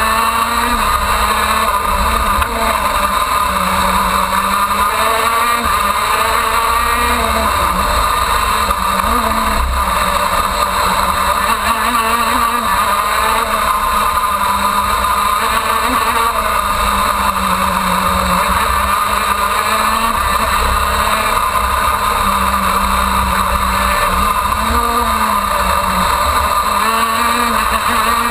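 Onboard sound of a KZ2 shifter kart's 125cc two-stroke engine at racing speed, its pitch climbing and dropping again and again as it accelerates out of and brakes into corners.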